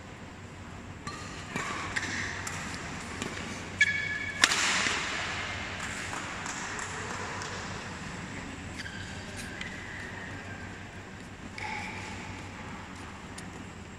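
Badminton rally: sharp clicks of rackets striking the shuttlecock and short squeaks of shoes on the court mat. The loudest hit comes about four and a half seconds in and is followed by a brief burst of noise.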